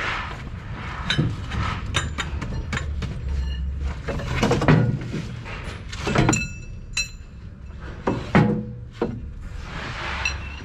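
A series of clanks and knocks from metal gear being handled, a few ringing briefly, over a steady low rumble.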